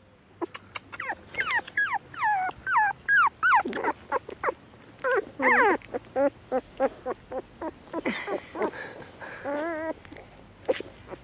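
A litter of young puppies whining and whimpering: a run of high, falling whines in the first few seconds, then a quicker string of short yelps, and a wavering whine near the end.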